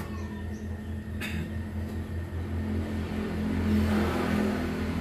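A steady low mechanical hum, with a single sharp click about a second in and a rise in rushing noise around the middle of the last two seconds.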